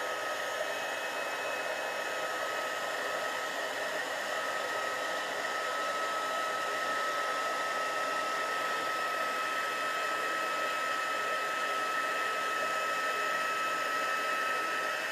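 Handheld heat embossing tool running steadily: fan motor whine over the rush of blowing hot air, used to melt gold embossing powder on a cardstock tag.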